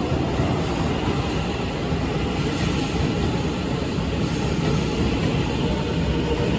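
A train running at a station platform: a steady, loud rumble of wheels and motors with no breaks.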